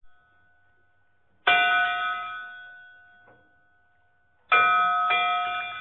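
Bell chimes of an intro sound logo: one bell stroke about a second and a half in that rings and fades, then two more strokes about half a second apart near the end, ringing out and fading.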